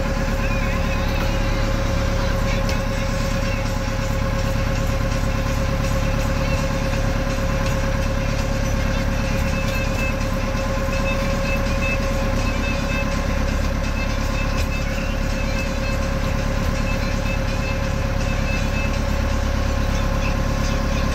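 A boat's engine running steadily with an even drone, heard from inside the wooden passenger cabin.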